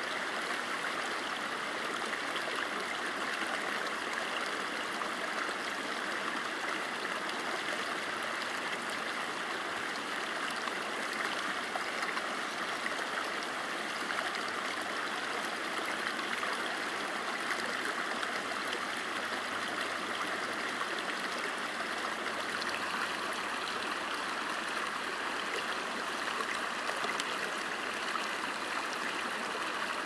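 Shallow river running over and between rocks: a steady rushing and burbling of moving water.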